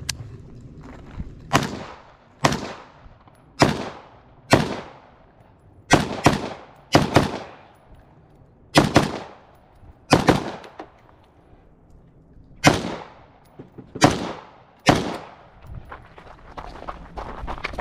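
A string of about fourteen gunshots at an uneven pace, single shots mixed with quick pairs, each trailing off in a short echo.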